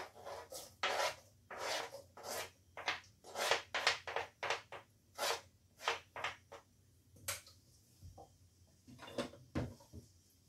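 A metal utensil scraping and stirring in a metal cooking pan: a run of quick rasping strokes, about three a second, that pauses about seven seconds in and picks up again briefly near the end.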